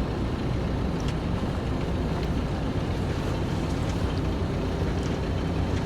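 A sailboat's inboard engine running steadily as the boat motors under way, a low even drone with wind noise on the microphone over it.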